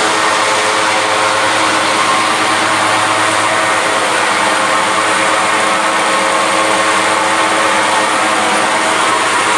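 Mini blast furnace plant running steadily: a loud, even machine noise with a constant hum of several fixed tones over a dense hiss.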